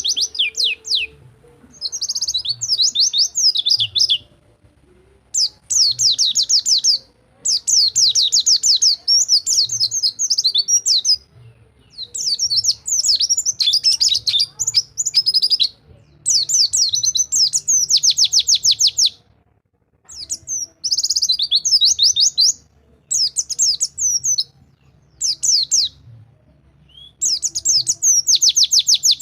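White-eye singing its fast rolling 'rol tembak' song: repeated bursts of rapid, high trilled notes, each a second or a few seconds long, with short pauses between.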